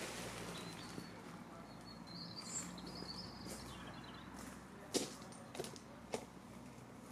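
Faint outdoor air noise with a bird chirping, then a few soft knocks about five and six seconds in as the wooden pole lathe is handled and walked around.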